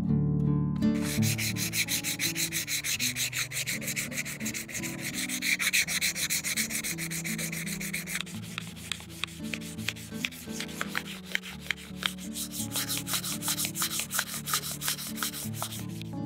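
Sandpaper rubbing back and forth over a scale model car's body shell in quick repeated strokes, several a second. It starts about a second in and stops just before the end.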